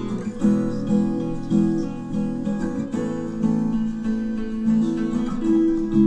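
Background music: a plucked acoustic guitar tune.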